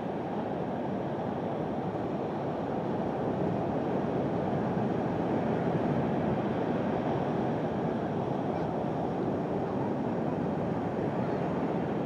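Steady rushing noise of sea surf on a rocky shore, mixed with wind.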